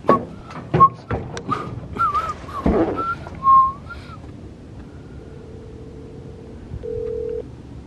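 Short wavering whistled notes mixed with clicks of handling, then a phone call's ringback tone, a steady hum that is faint at first and louder for a moment near the end.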